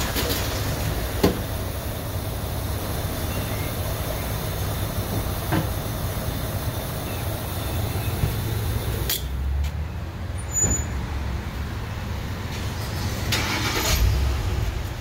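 Gas pump dispensing gasoline through the nozzle into a car's fuel tank: a steady rushing hum with a low rumble, broken by a few light knocks.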